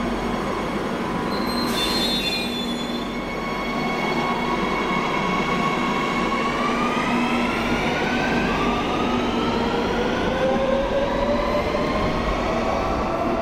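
Madrid Metro electric train pulling out of a station: its motors whine in several tones that climb steadily in pitch as it gathers speed, over continuous wheel and rail noise. A brief high tone sounds about two seconds in.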